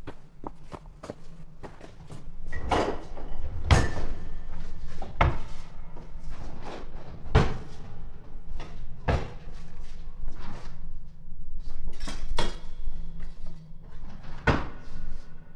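Kitchen cupboard doors and drawers yanked open and banged shut in a hurried search, a rapid, irregular run of knocks and clatters with several loud bangs. A low steady hum runs underneath.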